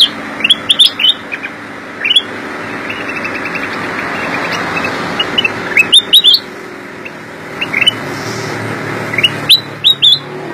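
Caged black-crested bulbul singing: bursts of quick, sharp, rising chirps, with pauses of a few seconds between phrases, over a steady background hiss.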